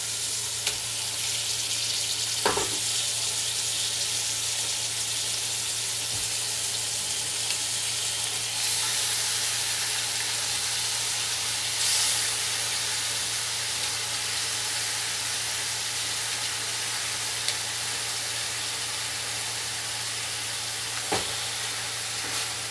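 Marinated chicken pieces sizzling in an aluminium pot of butter-sautéed garlic and onion, a steady hiss that grows a little stronger partway through. A wooden spatula stirring the chicken knocks against the pot a couple of times.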